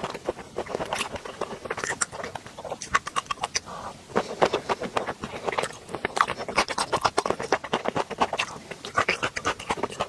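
Close-miked wet chewing of raw shrimp: a steady run of sticky mouth clicks and smacks, several a second, with no pauses.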